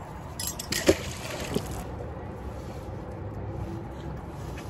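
Wet magnet-fishing rope hauled up hand over hand from the water, with water dripping and sloshing. There are a few sharp knocks in the first second.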